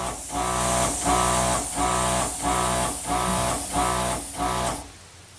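Background guitar music: strummed chords in a steady rhythm, about two a second, dropping away briefly near the end.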